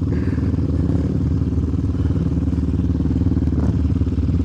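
Sport quad's single-cylinder four-stroke engine running at a steady, even pitch, neither revving up nor dropping off.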